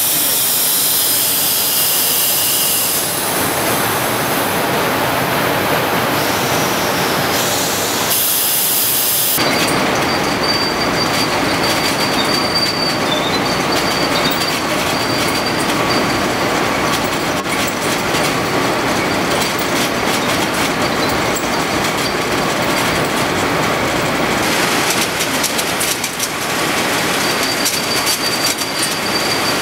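Loud, steady sugar-mill machinery noise. For about the first nine seconds a spinning steel cylinder in a pan of shredded cane runs with a high hiss. Then it cuts suddenly to a belt conveyor carrying shredded cane, rattling and squealing over its rollers, with a faint thin whistle coming and going.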